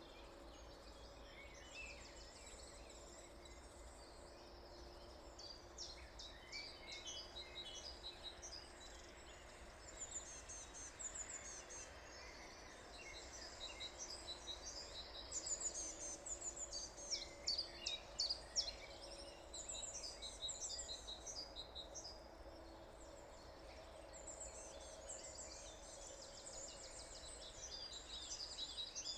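A morning chorus of several songbirds: many overlapping chirps, whistles and trills, densest about halfway through, over a faint steady low hum.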